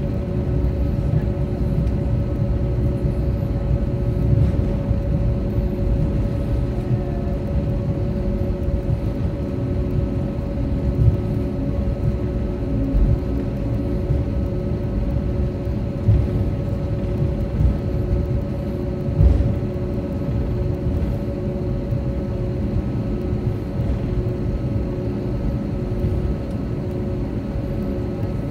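Airbus A320 cabin rumble while taxiing, with a steady engine hum at idle and a few brief bumps as the wheels roll over the taxiway.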